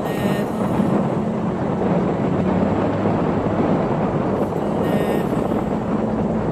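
Steady wind rumble buffeting the camera microphone, with two short pitched sounds, one right at the start and one about five seconds in.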